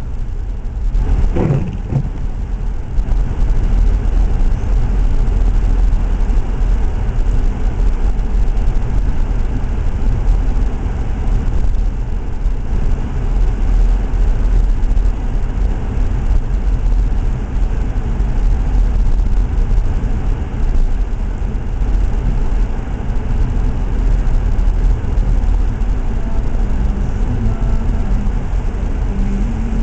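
Steady low rumble of a car driving on a snow-covered road: engine and tyre noise.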